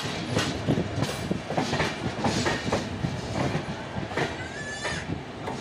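Indian Railways sleeper-class passenger coach running through a yard, its wheels rumbling and clacking irregularly over rail joints and points. A short rising whine comes about four seconds in.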